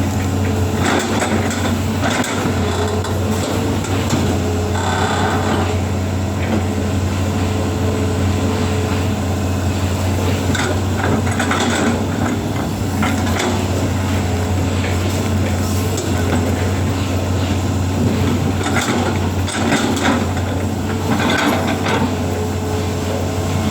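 Excavator's diesel engine running steadily, with short knocks from the machine scattered through it, several in the second half.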